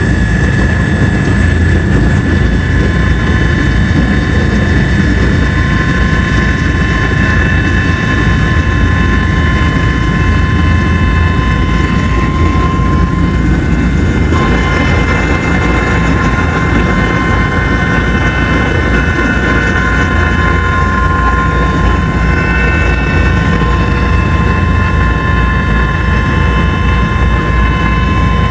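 Helicopter running steadily and loud, a low rotor-and-engine drone under a high, steady turbine whine; the whine shifts slightly in pitch about halfway through.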